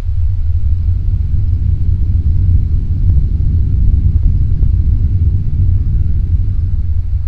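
Loud, steady low-frequency rumble, its weight below the pitch of a low male voice, with a couple of faint ticks midway. The recording is presented as the mysterious low-frequency 'hum' that residents report.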